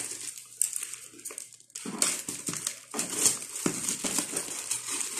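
Black plastic parcel bag crinkling and rustling in irregular bursts as it is handled and cut open with scissors.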